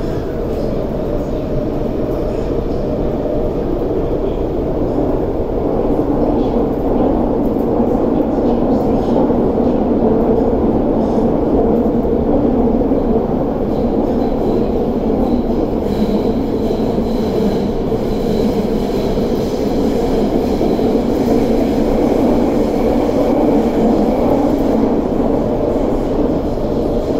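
Interior running noise of an MTR SP1900 (IKK) electric train under way: a steady rumble of wheels and running gear, a little louder from about six seconds in.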